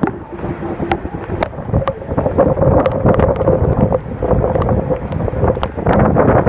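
Rushing roar of a large waterfall close by, with wind and blown spray buffeting the microphone and sharp ticks scattered throughout. A steady hum sits under it from about two seconds in to about five seconds in.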